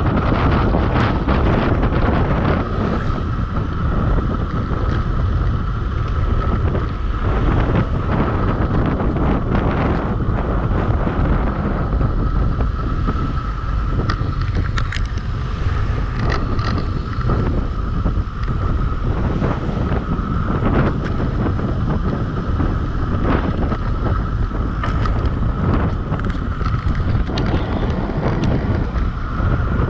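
Heavy wind buffeting the microphone during a fast downhill descent, with a steady high whine underneath.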